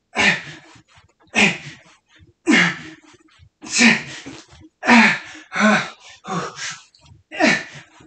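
A man grunting and breathing out hard in time with fast squat repetitions, about one effortful grunt a second, each falling in pitch.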